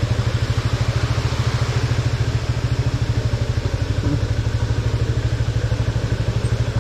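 Yamaha FZ25's single-cylinder engine running at low revs with a rapid, even beat as the bike creeps over a rough stone path.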